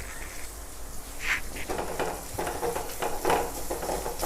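Sliced onions sizzling in hot oil in a frying pan. From about a second and a half in, a spatula stirs and scrapes them in repeated strokes.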